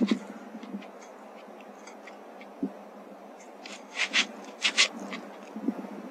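Handling noise on a rifle scope's built-in microphone: a low knock about two and a half seconds in, then two pairs of short sharp clicks a little later.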